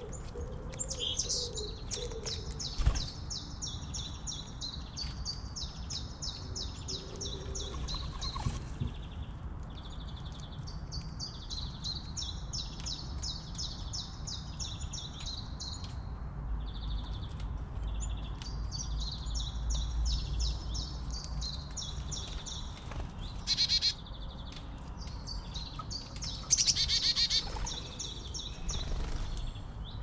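A songbird singing long runs of rapid, repeated high notes, pausing briefly between runs. Near the end, two short, louder noisy bursts cut in.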